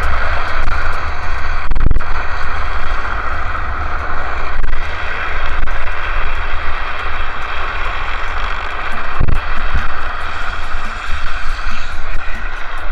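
Drift trikes' hard plastic rear wheels rolling and sliding on asphalt at speed, mixed with wind buffeting the handlebar camera's microphone: a loud, steady rushing noise with a heavy low rumble. A couple of short knocks, about two seconds in and again about nine seconds in.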